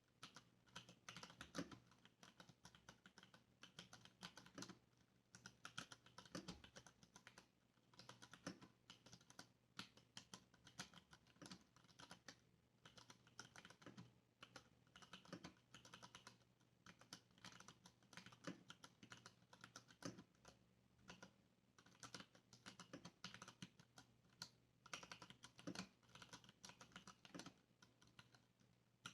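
Typing on a Varmilo mechanical keyboard with stock (unmodified) Cherry MX Brown tactile switches: a fast, quiet run of key presses and keycap bottom-outs, broken by short pauses.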